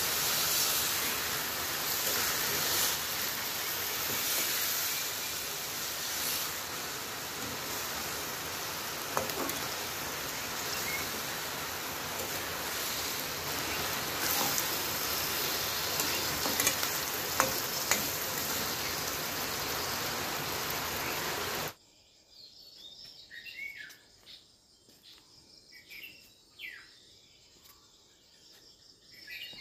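Pork, potato and onion frying in a wok with a steady sizzle, a metal spatula clicking and scraping against the pan now and then. About 22 seconds in the sizzle cuts off abruptly, leaving faint high chirps.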